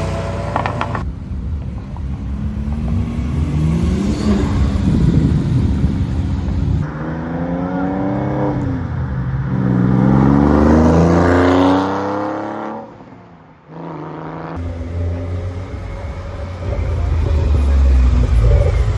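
Porsche sports car engines revving and accelerating in a run of short spliced clips, the engine pitch climbing and falling repeatedly through gear changes and throttle blips, with abrupt cuts between clips and a brief drop in loudness about two-thirds of the way through.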